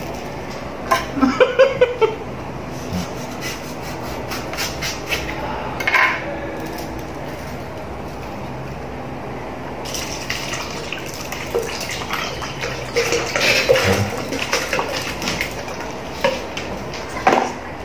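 A paper drink carton being handled and opened with a few crinkles and taps, then iced lemon tea poured from it into a blender jug, the splashing pour starting about ten seconds in.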